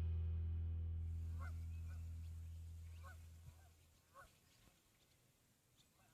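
Background music fading out over the first few seconds, with geese honking faintly and repeatedly from a distance, the calls coming in small clusters.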